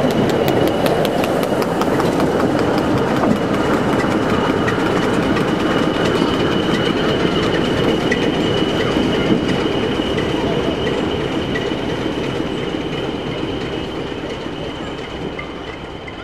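Passenger coaches rolling past close by on jointed track, their wheels clicking over a fishplated rail joint in the first few seconds, then the rumble fading away as the train draws off. A steady high-pitched whine runs under it.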